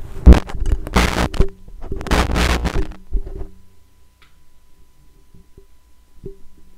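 Handling noise picked up by a Pyle USB podcast microphone as its foam windscreen is pushed on and rubbed over the capsule: loud rustling and bumps for about three seconds. After that come a few light knocks as the shock mount and stand are handled.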